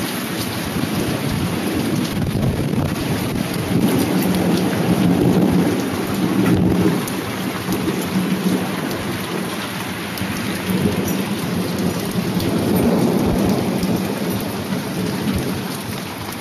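Hailstorm: heavy rain and marble-sized hail pelting down, a dense continuous rush dotted with many small sharp ticks, swelling louder a few times.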